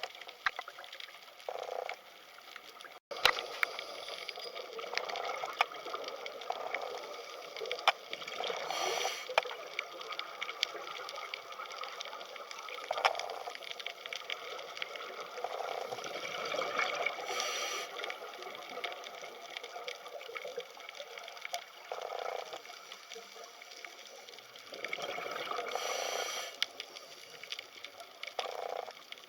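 Underwater sound in the sea: a steady fizzing crackle of fine clicks, with louder bubbling rushes every few seconds. It cuts out briefly about three seconds in.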